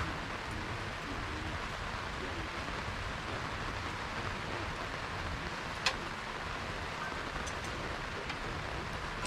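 Steady rain falling, an even hiss with one sharp click about six seconds in.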